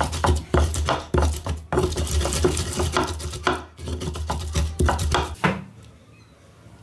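Wooden pestle grinding and mashing tomatoes, onions and peppers into a pepper dip in a clay grinding bowl (asanka): rapid knocks of wood on clay with a wet squash, about two to three strokes a second, stopping about five seconds in.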